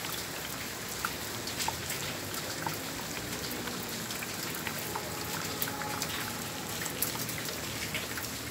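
Heavy rain falling steadily: a continuous hiss with many sharp, scattered drop clicks throughout.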